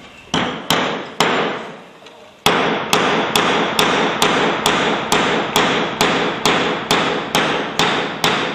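Hammer blows: three strikes, a short pause, then steady strikes about two and a half a second, each ringing briefly.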